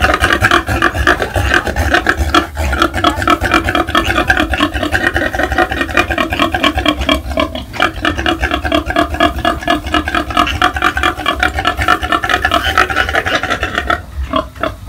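Newly farrowed sow grunting in a fast, rasping, unbroken run of pulses that keeps up steadily and stops near the end.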